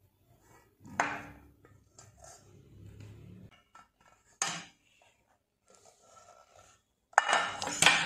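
Aluminium saucepans being handled, knocking against each other or the counter: a clink about a second in, another sharp one a little before halfway, and a louder run of clattering near the end.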